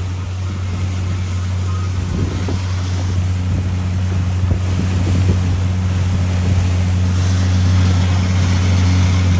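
Fishing boat's engine running steadily while trolling, a constant low drone, with wind and water noise over it.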